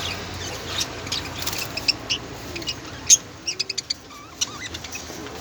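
Small birds chirping: short, sharp, high chirps scattered throughout, with a quick run of about five chirps a little past halfway.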